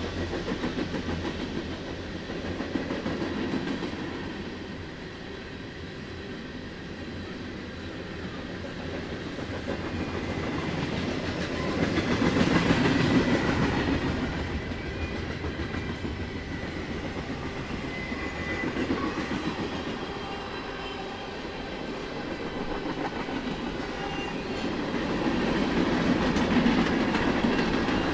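Norfolk Southern freight train's cars rolling past on the rails, the wheel noise swelling louder about twelve seconds in and again near the end.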